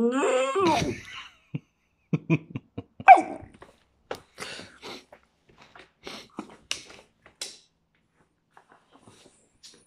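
Schnauzer's drawn-out whining vocalization, rising in pitch and breaking off about a second in, then a run of short snorts and huffs for several seconds; an attention-seeking dog 'talking' to its owner.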